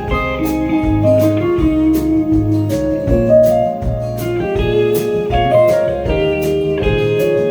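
Live band playing an instrumental break: a guitar lead carrying the melody over bass and drums keeping a steady beat.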